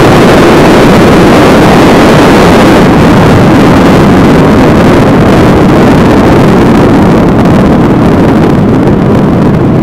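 Kawasaki ZX14R's inline-four engine running at speed under loud wind rush on the microphone, a dense steady roar that eases slightly over the last few seconds.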